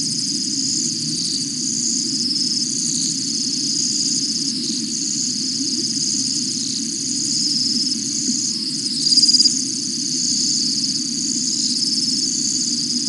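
Night chorus of crickets trilling continuously in high, fast-pulsed overlapping trills, one trill growing louder about nine seconds in, over a steady low hum.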